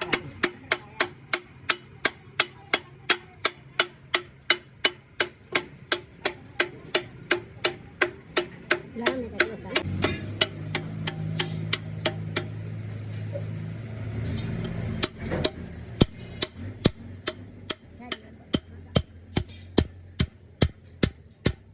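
Hammer striking metal in an even rhythm, about two to three blows a second, keeping on steadily. A low steady hum joins for a few seconds around the middle.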